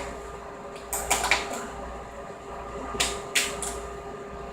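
Sharp clicks and scrapes of a multi-tool prying at a phone's casing, coming in two bursts of about three clicks each, roughly two seconds apart.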